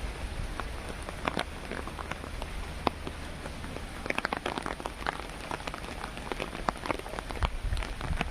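Rain falling steadily: a constant hiss with many separate drops tapping sharply.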